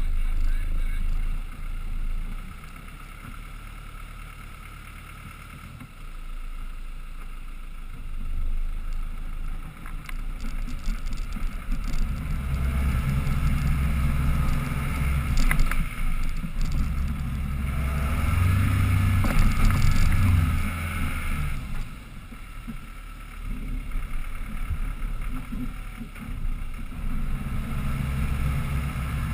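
Land Rover Defender 110 engine pulling the truck slowly uphill off-road. Its rumble is quieter at first, swells under load through the middle, eases briefly and builds again near the end. A few sharp knocks come midway.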